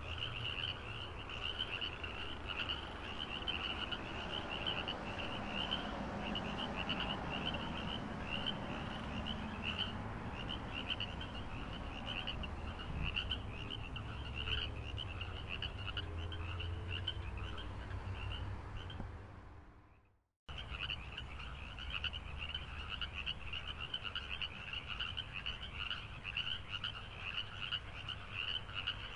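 A chorus of frogs calling in fast, steady pulsing trills over a low rumble. The sound fades out about two-thirds of the way through and cuts back in abruptly a moment later.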